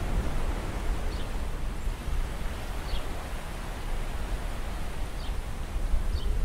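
Steady wind and sea noise with a deep, fluttering rumble of wind buffeting the microphone. Four faint, short, high chirps come through about one, three, five and six seconds in.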